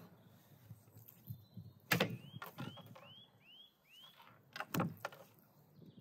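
Knife knocking against a wooden cutting board as a whole fish is cut, the loudest knocks about two seconds in and again near the end. In between, a bird gives five short chirps in quick succession.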